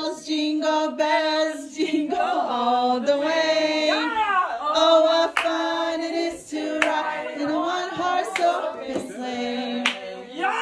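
Several voices singing together in sustained, gliding notes, with a few sharp clicks among them.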